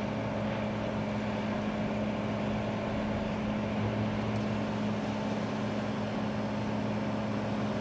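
A tugboat's diesel engine running steadily, a low, even hum that does not change.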